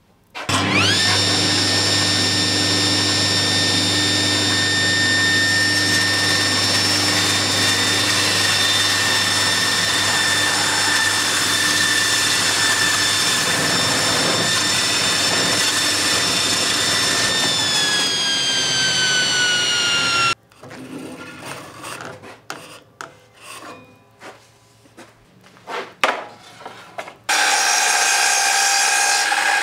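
Table saw running with a steady high whine while square wooden stock, spun by a cordless drill, is fed through a hole in a clamped block against the blade to turn a round dowel; the pitch sags slightly just before the sound cuts off about 20 seconds in. Irregular knocks and rattles follow, then a sliding mitre saw starts with a steady whine near the end.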